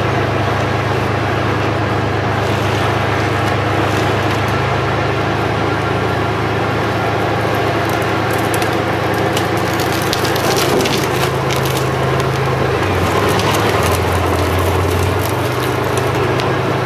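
T-55 tank's V12 diesel engine running steadily, its note shifting about two-thirds of the way through. From about halfway on, sharp cracks and clatter of wooden planks sound over it.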